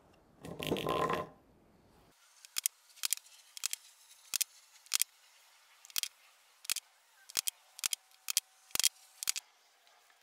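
A brief noisy burst near the start, then a run of sharp, irregular clicks, about one or two a second, as a bench chisel is pressed by hand into the wood to pare a hexagonal recess for a nut around a drilled hole.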